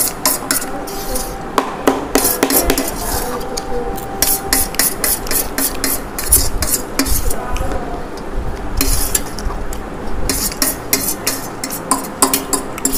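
Metal fork scraping and clinking against a steel plate over and over as noodles are scooped up quickly.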